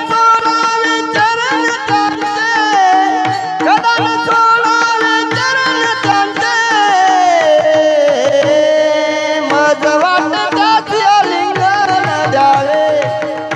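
Devotional abhang singing with pakhawaj accompaniment: a singer draws out long, ornamented phrases that glide up and down, over a steady held drone, with occasional deep drum strokes.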